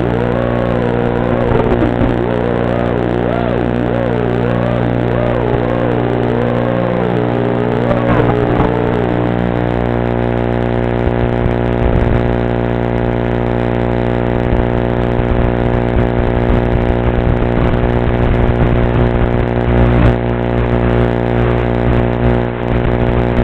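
Steady, many-pitched electrical buzz from the FPV quadcopter's analog video link. Over the first nine seconds or so the drone's motors whine and waver in pitch with the throttle, then stop, leaving only the buzz as the quad sits in the grass.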